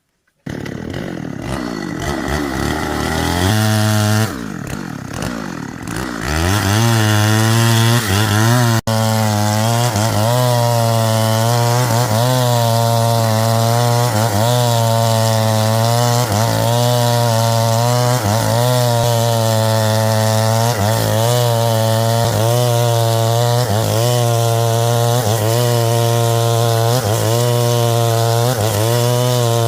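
Chainsaw engine starting up about half a second in and revving over the first few seconds, then running steadily while sawing wood. Its pitch dips under load and recovers about once a second.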